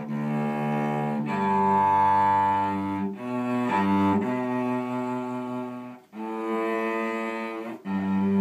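A bowed string instrument in the cello or double bass range playing long, held notes. It moves to a new note every one to three seconds, with a brief break about six seconds in.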